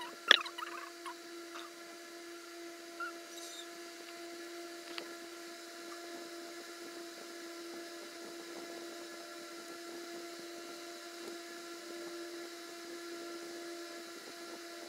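A steady, even hum with a few overtones, with one sharp click just after the start.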